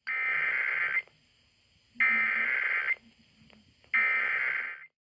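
Emergency Alert System SAME header: three one-second bursts of digital data tones, each separated by about a second of silence. This is the coded header that opens a Required Monthly Test broadcast.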